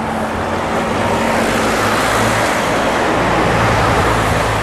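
Steady road traffic noise: a vehicle engine's low hum under a constant rushing sound of tyres and passing cars.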